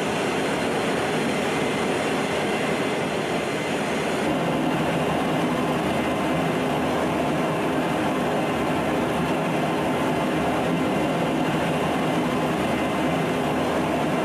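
Steady engine and airflow noise of a military transport aircraft in flight, heard from inside the cargo hold: an even, unbroken drone with a few faint steady tones.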